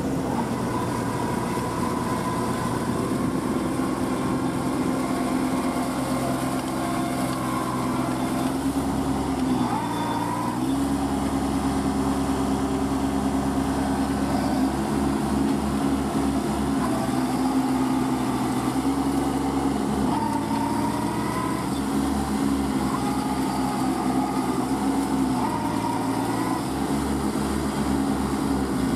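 Diesel engine of a Kubota compact tractor on iron cage wheels, running under load as it works to climb out of deep paddy-field mud. The engine note drops and rises again a few times.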